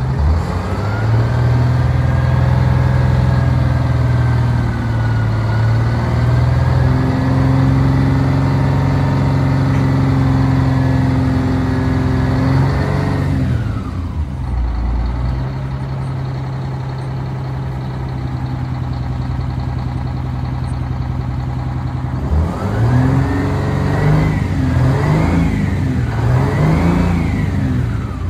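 1989 Crown Supercoach bus's diesel engine revved and held at high speed, dropping back to idle about halfway through, then revved up and down three times in quick succession near the end. The engine is being run up to check how much exhaust smoke it still makes after repair.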